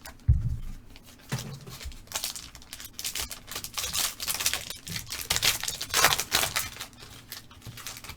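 Foil trading-card pack wrappers and cards being handled on a table: irregular crinkling and tearing of the wrappers, with a few soft thumps.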